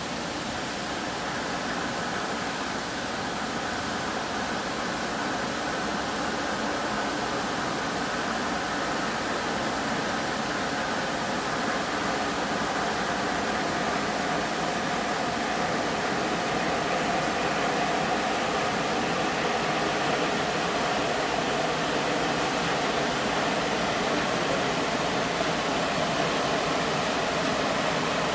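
Engines of the ferry Ferry Iheya III running as it comes into port: a steady rushing noise with a faint hum, growing slowly louder.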